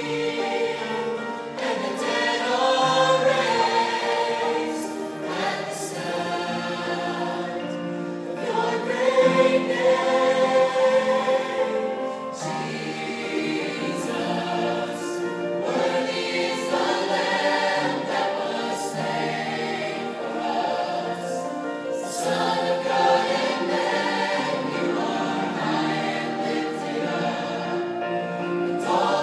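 College choir singing a Christian worship song, with long held notes.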